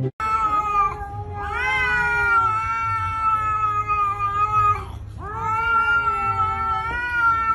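A cat yowling in drawn-out meows: one short call, then two long, steady calls of about three seconds each.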